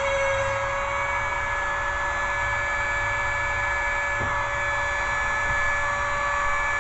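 Power tool with an abrasive cut-off wheel running at a steady high-pitched whine, cutting slowly through the steel blade of a butcher knife.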